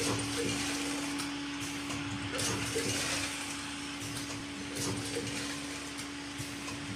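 Linear weigher for puffed snacks running: a steady hum over a constant hiss of machinery noise, with a few soft clicks.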